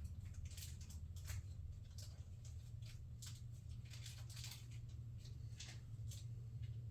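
Faint, scattered small clicks and rustles of small hardware and plastic parts being handled, over a steady low hum.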